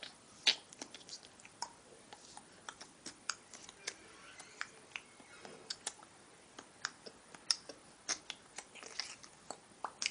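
Slippers flicked and jerked on the feet, giving many light, irregular clicks and slaps.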